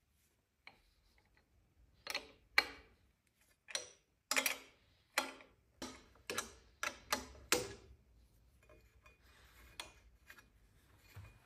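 Wrench work on the 13 mm bolt that holds a motorcycle mirror and hand guard to the handlebar: a run of about a dozen sharp metallic clicks, a few per second, that stops about eight seconds in.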